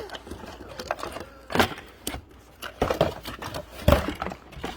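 Scattered clicks and knocks of a hard plastic toy cement truck and its packaging being handled, with a few sharper knocks, the loudest about four seconds in.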